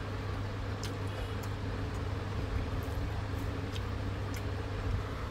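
Steady low background hum with an even noise haze and a few faint ticks.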